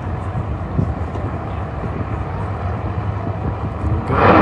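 Two drag race cars rumbling at the starting line, a steady low rumble; about four seconds in they launch at full throttle with a sudden loud blast of engine noise.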